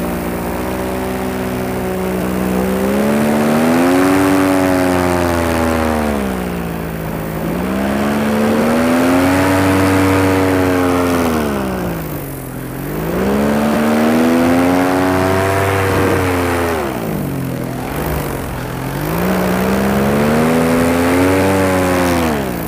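Paramotor engine running in flight, its pitch rising and falling in four long, smooth swells as the throttle is worked through a series of steep banked turns (wingovers).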